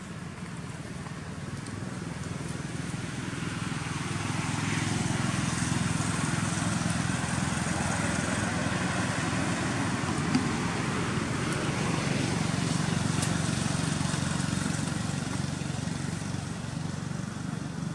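A motor vehicle's engine running, a steady low hum that swells louder for several seconds in the middle and eases off near the end, with one brief click about ten seconds in.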